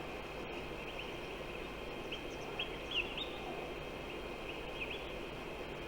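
Outdoor ambience: a steady high-pitched drone with a low rustling haze beneath, and a handful of short rising bird chirps, most of them around the middle.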